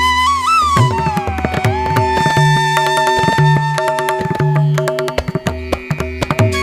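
Instrumental background music: drum strokes under a held melodic line that slides down in pitch about a second and a half in, then holds steady for a few seconds.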